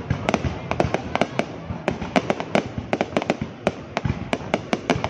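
Aerial fireworks bursting in quick, irregular succession: sharp bangs and cracks, several a second, over a continuous low rumble.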